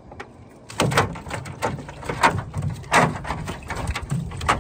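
Gill net loaded with hassar (brown hoplo catfish) being hauled over the side of a metal jon boat. About a second in, a run of knocks and thuds starts, roughly one every half to three-quarters of a second, as net and fish land on the deck.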